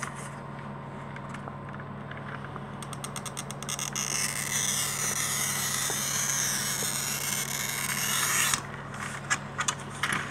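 Hand-held glass cutter scoring a straight line across a sheet of picture-frame glass: a brief run of fine rapid ticks, then a steady high scratchy hiss for about four and a half seconds that stops abruptly. A few light clicks follow as the glass is handled.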